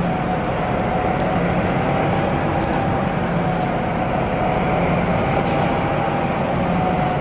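Steady running noise of a train: a constant din with a low hum and a higher held tone, unchanging throughout.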